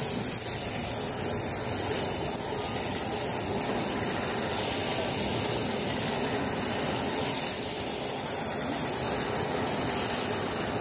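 Handheld butane gas torch burning steadily, its flame hissing as it sears a skewer of squid on a griddle.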